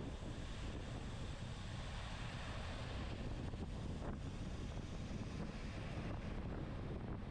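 Wind buffeting the microphone of a bike-mounted camera during a road race, a steady low rumble with rushing hiss over it.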